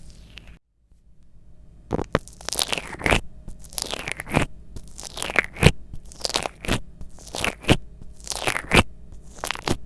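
Slime being squeezed and poked by hand, giving a string of wet, crunchy pops and crackles. After a brief break just under a second in, the pops come roughly every half second to second.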